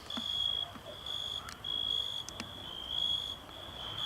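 Night insects, crickets or katydids, chirping in a steady high-pitched pulsing chorus, each pulse about half a second long, with a few faint clicks.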